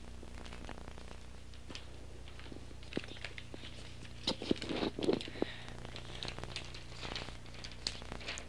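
A large paper map being unfolded and handled, crinkling and rustling in scattered small clicks, with a denser flurry of rustling about four to five seconds in.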